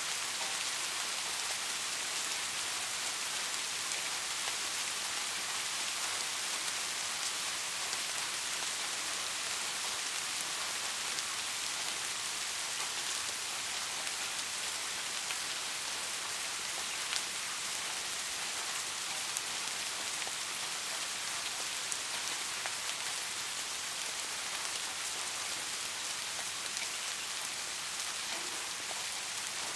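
Steady rain: an even hiss of falling rain with scattered drop ticks, and a few sharper single drops standing out.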